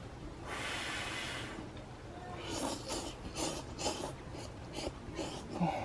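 A person slurping hot ramen noodles: one long airy slurp about half a second in, then a run of quick short slurps.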